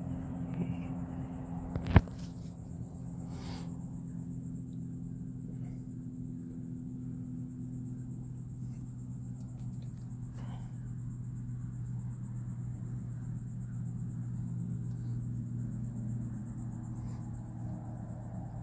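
A vehicle engine idling in the truck cab with a steady low hum, and a single sharp knock about two seconds in, followed by a few faint ticks.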